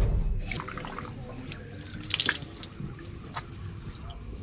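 Water running from an outdoor wall tap and splashing as a man washes his face with cupped hands, in irregular splashes, the loudest about two seconds in.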